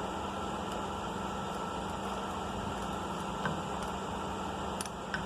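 Steady mechanical hum with an even hiss, broken by a few light clicks in the middle and near the end.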